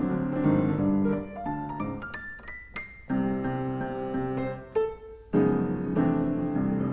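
Solo piano playing chords, with a quick rising run of high notes about two seconds in before the full chords come back.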